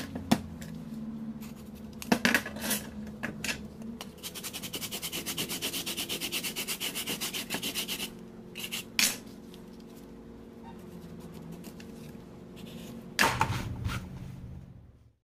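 Homemade drywall rasp, a strip of metal punched with nail holes, scraped back and forth along the cut edge of a gypsum board panel: a quick, even run of rasping strokes, about four or five a second, through the middle. Sharp knocks from handling the board come before and after the run, the loudest near the end.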